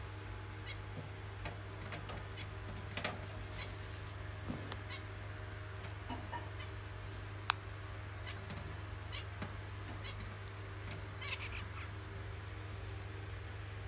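Zebra finch moving about its cage: scattered light taps and rustles, with one sharp click about halfway through, over a steady low hum.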